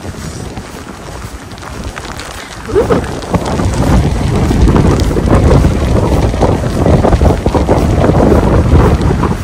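Strong wind buffeting the microphone. It is a heavy, low, gusty noise that surges much louder about three seconds in and stays loud.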